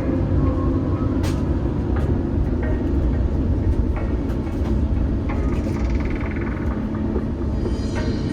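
Steady low rumble inside the cabin of an Airbus A350-900, with scattered small clicks and rattles from the cabin fittings.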